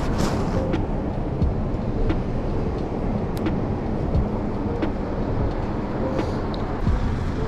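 City street noise: a steady low rumble of traffic, with faint regular ticks about every two-thirds of a second.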